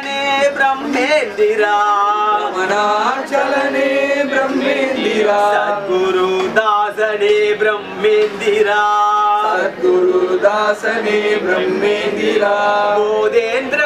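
A man singing a chant-like devotional melody, with long held notes that waver and glide between pitches.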